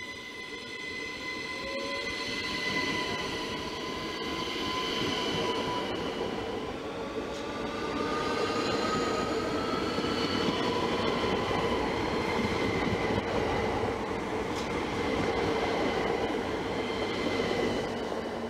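ÖBB Cityjet electric multiple unit (Siemens Desiro ML) running past along the platform track. Its electric traction drive whines in several high tones, some of them gliding upward, over steady wheel and rail noise that grows louder as the train passes close by.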